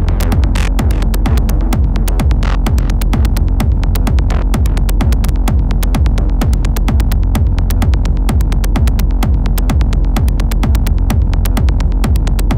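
Industrial techno: a heavy, steady low bass with a rapid, evenly repeating run of sharp high ticks over it.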